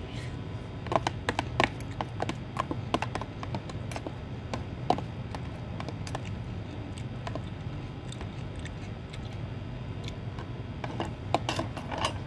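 Metal spoon and fork clicking and scraping against a plastic food tub, a scatter of sharp clicks bunched in the first few seconds and again near the end, over a steady low hum.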